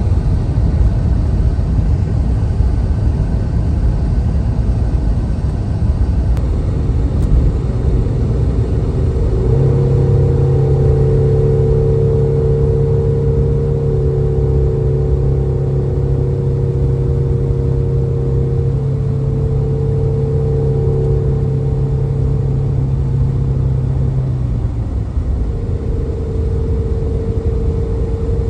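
2005 Jeep Liberty's 3.7-litre V6 running while the vehicle is driven, mixed with road rumble. A steady engine hum holds from about ten seconds in to about twenty-five seconds in.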